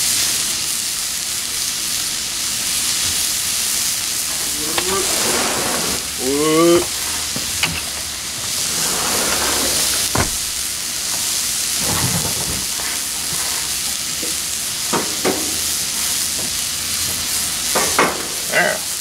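Steak searing on a hot gas flat-top griddle: a steady sizzle throughout, with a short pitched, warbling sound about six seconds in and a few sharp clicks later on.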